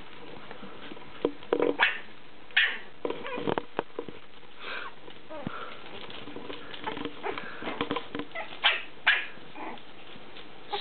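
Young puppies yipping and squeaking, a handful of short, high-pitched calls scattered through, over small rustles and scuffles.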